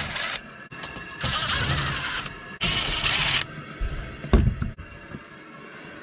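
Cordless drill-driver running in three short bursts, backing the screws out of an air handler's sheet-metal access panel, then one loud thump a little over four seconds in as the panel comes free.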